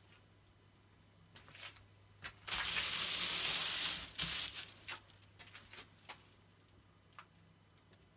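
Aluminium foil lining crinkling and rustling: a few light crackles, then a loud continuous rustle for about a second and a half, trailing off into scattered crackles.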